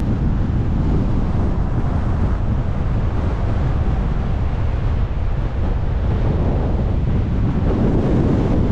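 Storm-force gale wind buffeting the camera microphone, a loud, steady low rumble.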